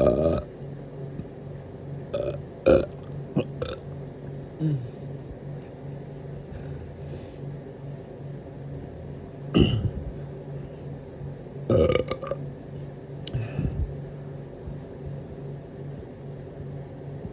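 A person burping repeatedly: a string of about seven short burps with pauses between them, the loudest about three and ten seconds in.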